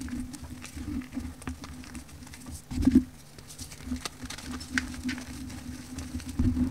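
Dry crunchy powder and its broken chunks being squeezed and crumbled by hand, with a patter of falling grains and many small crackles. A louder crunch comes about three seconds in and another near the end.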